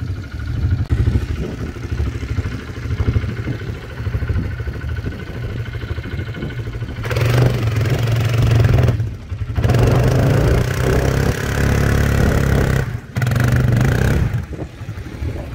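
Kymco MXU 250 quad bike's single-cylinder engine running and revving in long bursts, louder in the second half, with two brief breaks. The quad is stuck, its rear wheels spinning and digging into soft sand.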